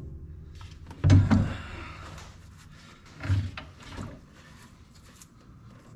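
A heavy Group 31 battery being shifted and pushed into its tray in a skid steer's engine bay: a loud clunk about a second in with a short scrape, then two softer knocks a little after three and four seconds.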